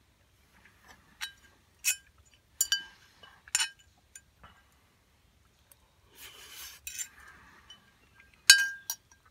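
A metal fork clinking and scraping against a small Lodge 6.5-inch cast iron skillet. There are four sharp, ringing taps in the first few seconds, a softer scraping stretch a little past the middle, and two louder clinks near the end.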